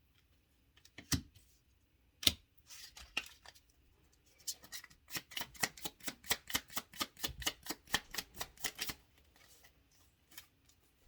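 Tarot cards being shuffled by hand: two single card taps in the first few seconds, then a run of quick, rhythmic card slaps, about six a second, for some four seconds.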